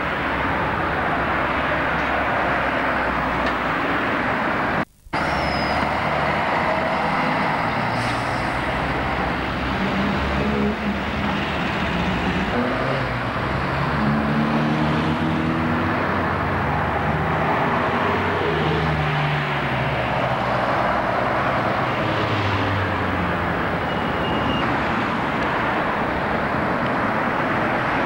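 Road traffic with double-decker bus engines running and pulling away, their pitch rising and falling through the middle of the stretch, over a steady traffic hum. The sound cuts out for a moment about five seconds in.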